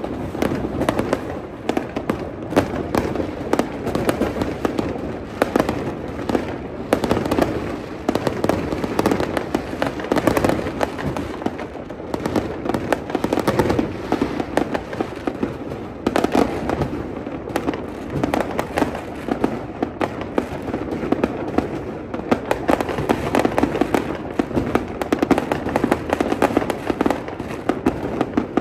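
Many aerial fireworks going off at once: a continuous stream of overlapping bangs and crackles with no pause.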